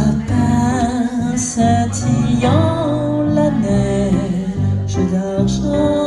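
A woman singing a melody into a microphone, accompanied live by electric bass guitar and keyboard.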